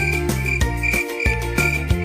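Cricket chirping in short, evenly repeated chirps, about three a second, over children's background music with a steady bass line.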